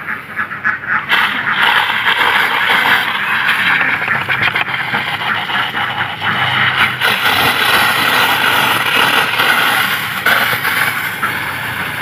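Hand-pump pressure sprayer hissing as it sprays a fine water mist, starting about a second in and running steadily with a couple of brief breaks.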